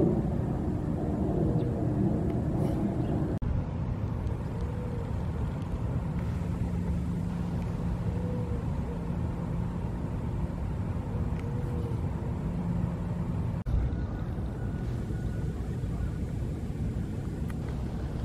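Steady low outdoor rumble of distant road traffic, with a faint hum. It drops out briefly twice.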